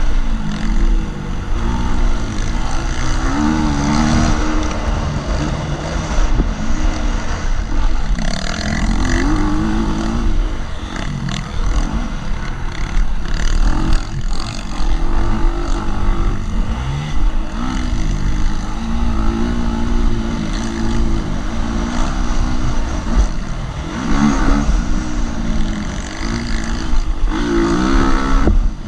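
2018 KTM 250 SX-F motocross bike's single-cylinder four-stroke engine revving up and down repeatedly as it is ridden hard round a dirt track, heard from the rider's helmet camera, with a constant low rumble underneath.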